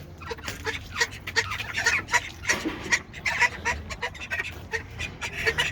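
A flock of farmyard fowl calling over one another, with many short, overlapping calls.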